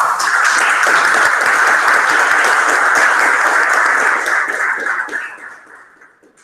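Audience applauding, many hands clapping at once. It starts suddenly at full strength, holds steady for about four seconds, then dies away over the last two.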